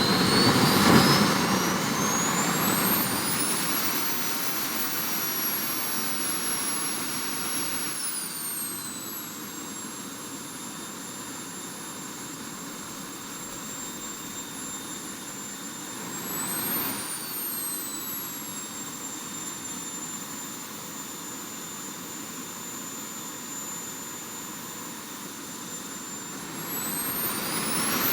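Small model jet turbine running with a high whine. It spools up over the first few seconds, holds steady, winds down to a lower idle, gives a brief throttle blip midway, then spools up again near the end.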